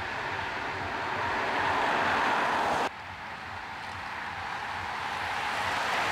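Steady rushing tyre noise from a lead car and a pack of road bicycles coming toward the microphone, growing louder. It cuts off abruptly about three seconds in, then the rush of a large group of road cyclists rises again as they come close.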